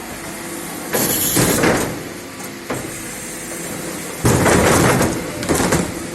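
Refuse being collected: two loud spells of clattering and banging as waste is tipped or handled, about a second in and again after about four seconds, over the steady running of the collection truck.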